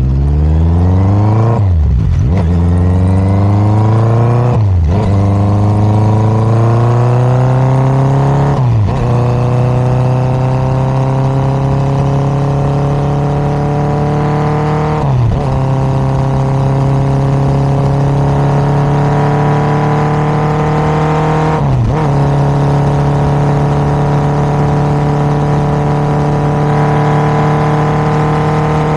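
Honda CBR1000RR sport bike's inline-four engine through an SC-Project exhaust, running loud at high revs. Its note climbs slowly and dips sharply for an instant five times.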